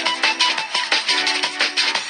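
Samsung SGH-M620 ringtone playing: an electronic melody of short notes over repeating chords with a steady beat.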